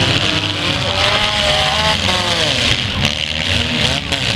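Demolition derby car engines running loudly, one revving up and down several times over the steady run of the others.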